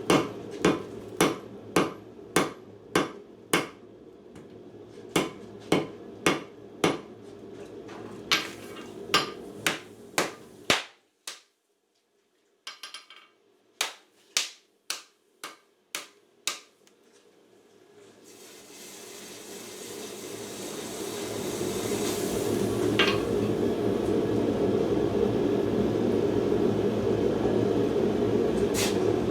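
Hand hammer striking hot steel on an anvil in a steady rhythm, a little under two blows a second. The blows break off about eleven seconds in, a shorter run follows after a pause, then a steady rushing roar builds up and holds through the last ten seconds, with a single clink in it.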